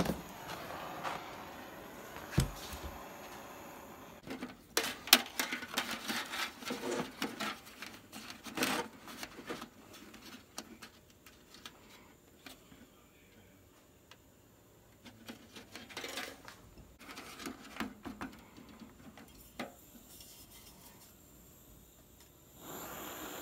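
Aluminium flexible duct being handled and pressed by hand, giving scattered crinkles, clicks and rattles, with a knock a couple of seconds in. Near the end a blowtorch is lit and settles into a steady hiss.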